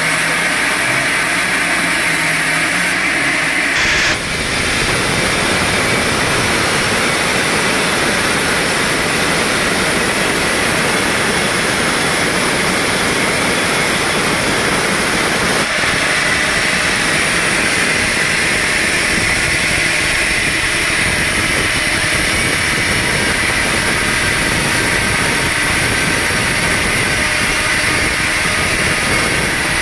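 Sawmill running while sawing jamaloi, a hard wood. For the first few seconds the machinery hums steadily; about four seconds in the sound changes abruptly to a loud, even hiss that holds steady.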